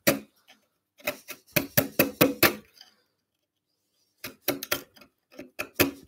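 A wide bench chisel paring waste from a halving joint by hand, giving runs of short, crisp cutting strokes with a pause of about a second and a half in the middle. The strokes take off the last of the waste down to the shoulder line.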